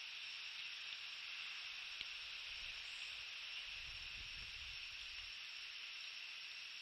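Steady hiss from a nest-camera microphone, with soft low rumbling and rustling in the nest straw from about two and a half to five seconds in as a bald eagle shifts its body over its egg.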